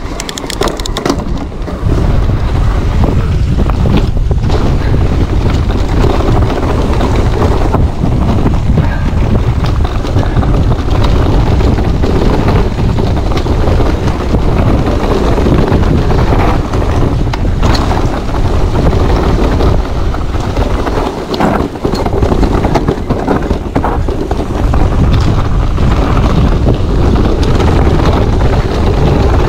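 Wind buffeting the microphone of a GoPro 9 action camera while riding an e-mountain bike down a trail. It becomes loud and steady about two seconds in, with scattered clicks and knocks.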